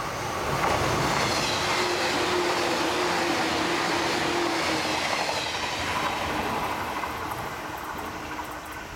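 JR 485-series electric multiple unit passing through a station at speed: wheel and rail running noise swells to a peak about a second in, holds, then fades as the train moves away. A steady hum runs through it and drops slightly in pitch about five seconds in.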